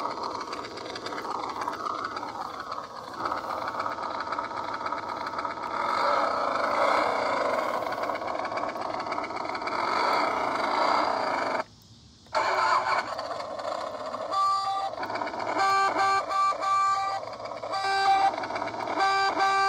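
Toy ride-on motorcycle running with a steady whirring noise. The sound cuts out briefly about twelve seconds in. From about fourteen seconds on, short tones repeat on and off.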